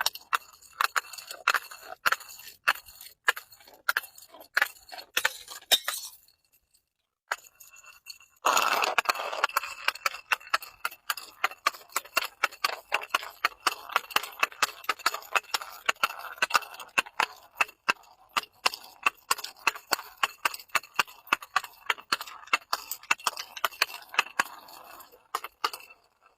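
Glass being broken and crushed: a rapid run of sharp cracks and clinking glass shards. It stops for about two seconds around six seconds in, then resumes as denser crunching.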